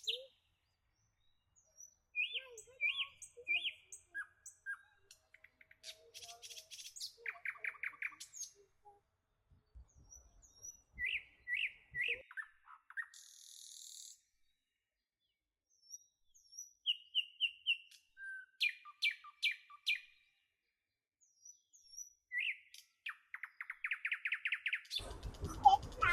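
Songbirds calling and singing: short chirps, quick trills and little whistled notes, in scattered phrases with stretches of complete silence between them. Near the end a noisier background with a low rumble comes in.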